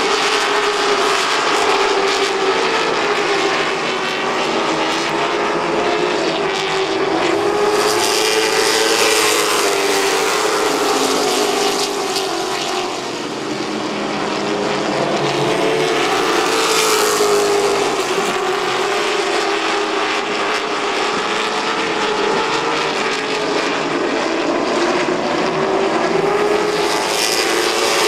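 Stock car racing engines running hard around an oval, their pitch rising and falling as the cars go through the turns and down the straights. The engine noise swells a few times as cars pass closer.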